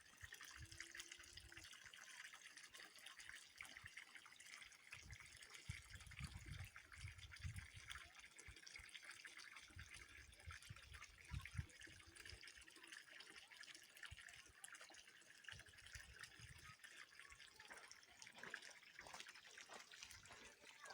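Faint trickling water, with irregular low rumbles.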